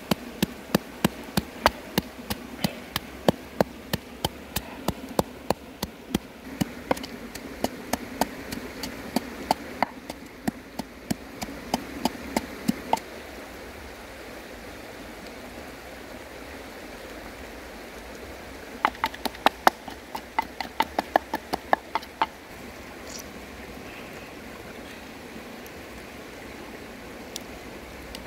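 Wooden pestle pounding in a wooden mortar, crushing garlic, chili and salt with sharp knocks about three or four a second. It stops about halfway through, and a shorter run of knocks follows a few seconds later, over steady background noise.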